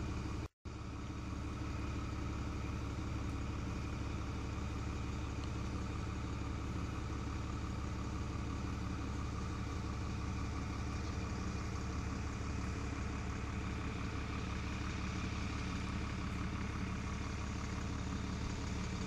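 Steady hum of a running motor, with several even tones held level. It cuts out for a moment about half a second in, then carries on unchanged.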